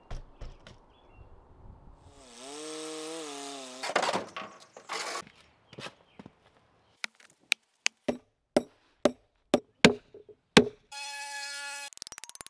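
A run of sharp strikes, about two a second, during outdoor groundwork, after a short pitched sound that dips and rises; a brief steady tone follows near the end.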